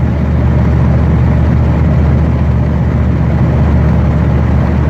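Steady low vehicle engine drone with an even hiss of road noise, holding constant throughout.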